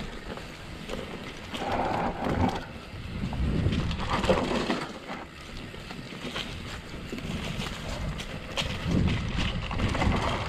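Wind buffeting the microphone with uneven low rumble and scattered clicks from a mountain bike rolling over a dirt trail, swelling and easing several times.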